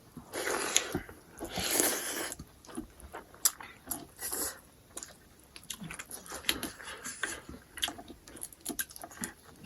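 A person chewing and biting food close to the microphone: two longer bursts in the first couple of seconds, then scattered short clicks and crunches.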